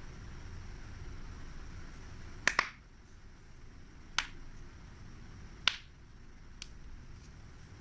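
Four sharp clicks, the first a quick double, then two more about a second and a half apart and a last faint one, over a low steady hum.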